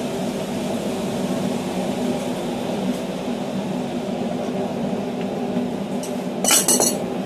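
A steady mechanical hum runs throughout. About six and a half seconds in comes a quick cluster of metallic clanks as the red-hot hexagonal steel hammer blank and tongs are set down on the anvil.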